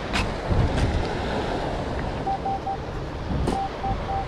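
Wind rumbling on the microphone over surf, then, a little past halfway, a metal detector beeping in short, evenly spaced pulses of one steady tone as it sounds on a target.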